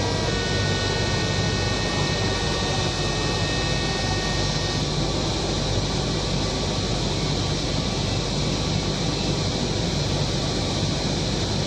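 Steady whoosh and low hum of a Kochi Metro car's air conditioning and ventilation while the train stands at a platform. A few faint high steady tones die away over the first five seconds.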